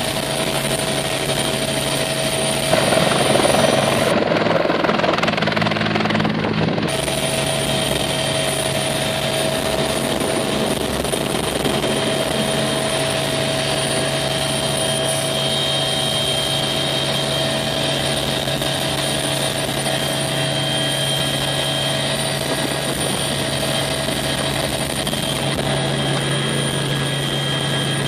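CH-146 Griffon twin-turbine helicopter heard from inside the cabin: a steady drone from rotor and turbines with a constant high whine. It grows louder and rougher for a few seconds near the start as the helicopter lifts off, then holds steady in flight.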